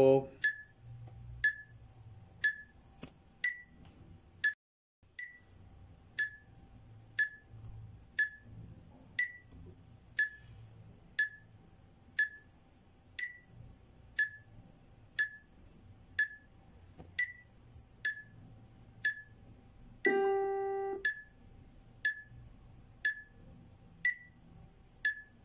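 Metronome ticking steadily at about two clicks a second, with a held note of about a second some twenty seconds in.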